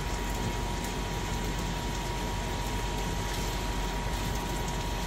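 Shrimp and garlic frying in a pan: a steady sizzle, with a faint steady high tone alongside.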